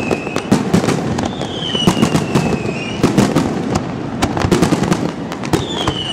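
Aerial fireworks shells bursting in quick succession: a dense run of sharp bangs and crackle. A long falling whistle sounds about a second in and again near the end.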